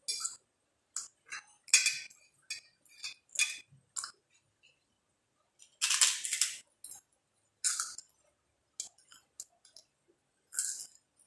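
Close-up eating sounds of fried noodles with sausage and crackers: a dozen or so short, irregular crackly sounds with brief silences between, the longest about six seconds in.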